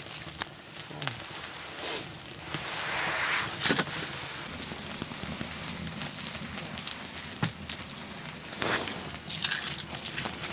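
Young wood fire of kindling and split firewood crackling and popping, with a few knocks and rustles as split wood is laid on the flames.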